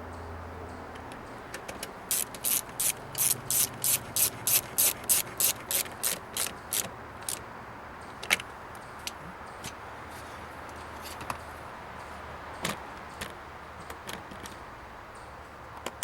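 Ratchet wrench clicking in a quick, even run of about four strokes a second for some five seconds as it drives in the 10 mm bolts holding a door panel, followed by a few scattered clicks.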